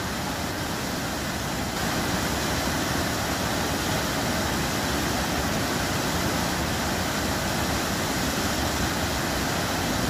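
Waterfall and river rapids rushing: a steady, even roar of falling and churning water.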